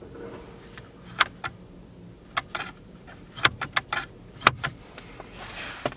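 Sharp plastic clicks and taps as the Audi A3's centre-console trim is pressed and the ashtray lid is closed over the spec.dock holder: a dozen or so short, irregular clicks, some in quick runs.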